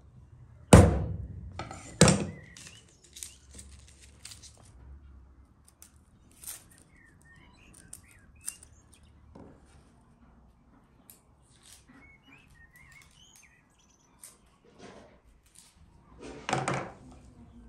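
Garlic being peeled and cut with a paring knife on a wooden cutting board: two loud knocks on the board in the first couple of seconds, then light clicks and taps of the blade, with another burst of knocking near the end. Birds chirp now and then in the background.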